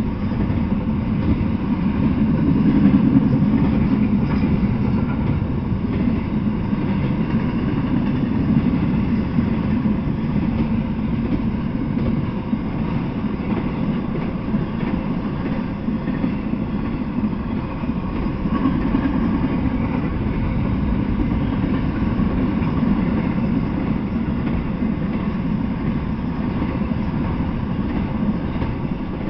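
Intermodal freight train of double-stacked containers and truck trailers on flatcars rolling past close by: a steady rumble of steel wheels on rail.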